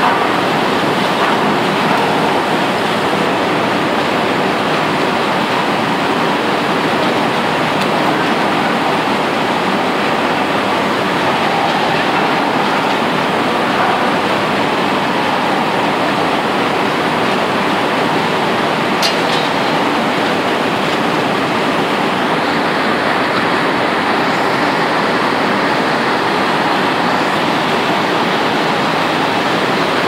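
Steady, loud rushing roar of a blast furnace tap hole blowing out hot metal and gas during casting, with one sharp crack about two-thirds of the way through.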